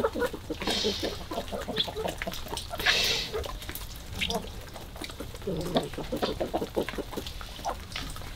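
Flock of hens and roosters clucking softly while pecking at feed, with many sharp taps of beaks on the wet concrete. Two brief rasping noises stand out about a second and three seconds in.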